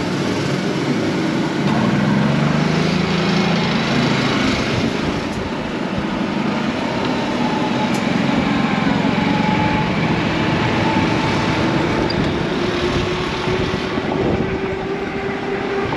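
Golf cart driving along: its small motor running steadily under a constant rush of air and tyre noise, the motor's pitch rising slightly near the end.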